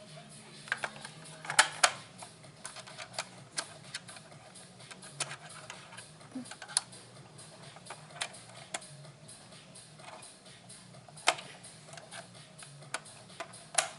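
Irregular clicks and taps of small plastic toy parts being handled and pressed into place, a few louder knocks among them, over a low steady hum.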